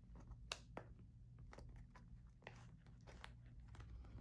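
Faint, scattered scrapes and clicks of a cardboard kit box being handled as its tightly packed contents are worked out.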